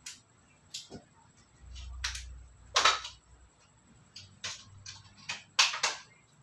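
Handling noise: a string of sharp clicks and knocks, with a short rustle or scrape about three seconds in, as tools are picked up and set down.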